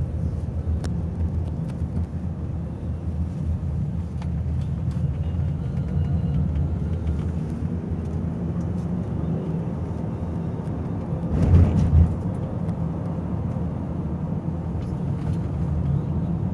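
Road and engine noise heard inside a moving car's cabin: a steady low rumble, with one brief louder rush of noise about two-thirds of the way through.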